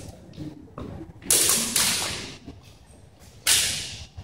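Steel practice swords clashing: two sharp strikes about two seconds apart, with a couple of lighter clicks before the first, each strike trailing off in the echo of the gym.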